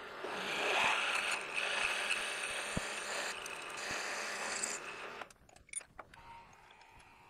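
Half-inch twist drill in a PM 727 mill drilling through a metal block: a steady grinding cut with a high whine. It stops about five seconds in, when the drill is through and withdrawn.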